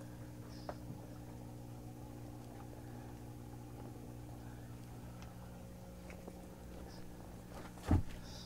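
Steady low electrical hum from the shed's running equipment, with one loud thump near the end.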